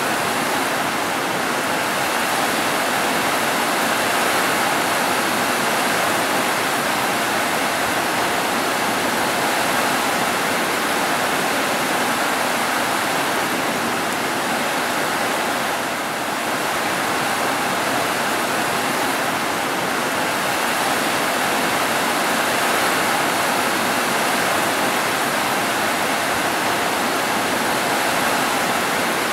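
Heavy rain pouring down on house roofs: a steady, even hiss of downpour.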